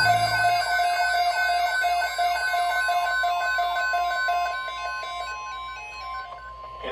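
Weather radio alert alarm: a steady high tone with a pulsing electronic beep pattern over it, sounding ahead of a severe thunderstorm watch broadcast. The beeping fades out near the end while the steady tone holds.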